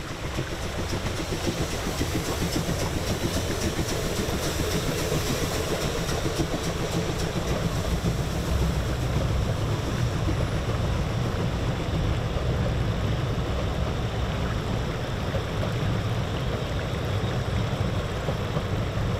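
Narrow-gauge (750 mm) steam train with locomotive 99 1734 running past over a steel bridge, a low rumble that builds over the first couple of seconds and then holds steady, over the rush of a shallow rocky river.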